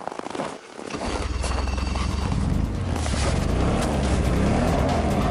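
Snowmobile engine running as it moves off with the sled in tow, a steady low drone setting in about a second in.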